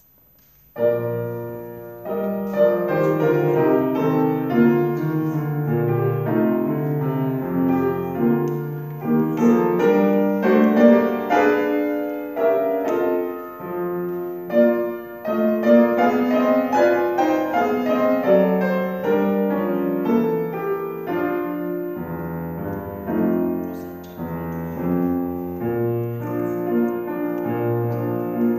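Grand piano playing a classical song accompaniment on its own, starting about a second in: the piano introduction to an art song.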